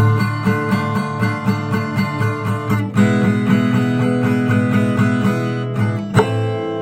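Acoustic guitar strumming chords in a steady rhythm, changing chord about halfway through. A final chord is struck near the end and left ringing.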